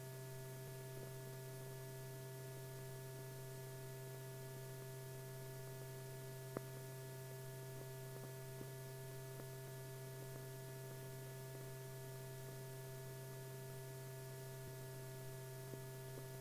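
Steady electrical hum on an old film soundtrack: a low drone with several fainter steady tones above it. A single faint click comes about six and a half seconds in.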